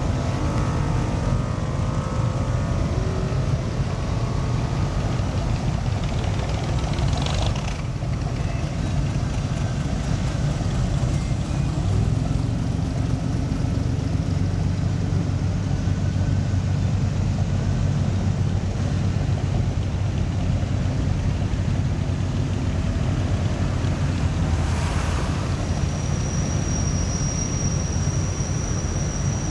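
Engines of vintage cars running as they roll slowly past one after another, a steady low rumble that grows deeper and stronger about twelve seconds in. Two brief whooshes pass, and a thin high whistle starts near the end.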